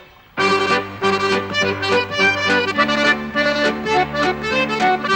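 Lively accordion tune that starts about half a second in, playing quick repeated notes over a held bass note.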